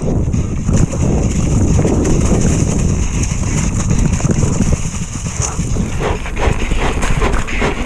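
Mountain bike descending a downhill trail: wind buffeting the rider's camera microphone over the tyres on dirt, with the bike clattering over bumps, the knocks coming thicker near the end.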